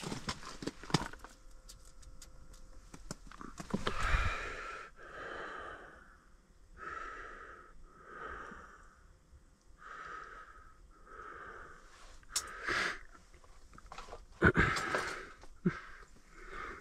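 Wheezy, sniffling breathing of a sick man close to the microphone, a breath about every second, broken by a few handling knocks and bumps. The loudest knocks come about four seconds in and near the end.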